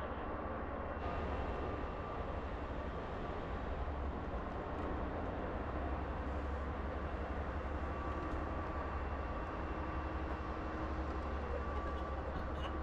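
Steady low rumble of a Sealink car ferry's engines and deck machinery, with a faint held hum above it.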